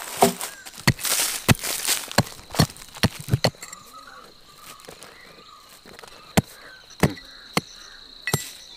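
Holes being dug in dry red soil by hand with a small tool: irregular sharp knocks and scraping of the ground being broken and scooped. From about three seconds in, a steady high insect call runs under it.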